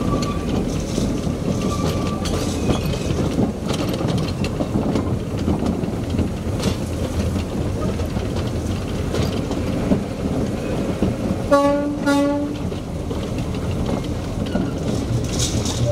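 Small narrow-gauge diesel locomotive and its wagon running along the track: a steady rumble of engine and wheels on the rails, with occasional clicks. About twelve seconds in a horn gives two short toots.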